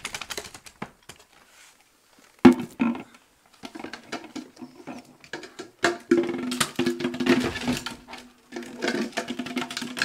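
Hard plastic food container on a dog's head clattering and scraping on a wooden parquet floor as the trapped dog moves, with a sharp knock about two and a half seconds in. Background music with a steady held tone comes in about halfway through.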